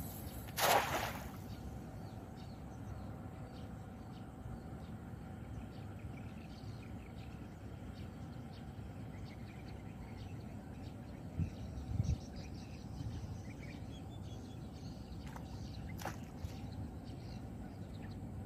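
A thrown cast net landing on pond water: one brief splash from its weighted rim about a second in. Faint bird chirps follow, with a couple of low bumps midway.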